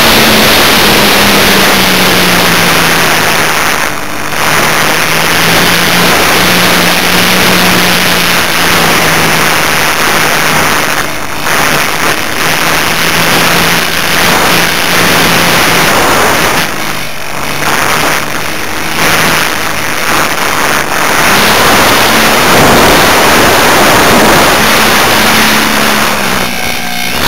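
Electric motor and propeller of an Art-Tech Cessna 182 foam RC plane running steadily under a loud rush of wind noise, as picked up by the small camera carried on the plane. The motor's tone drops in the first second and rises again near the end, and the wind noise dips briefly several times.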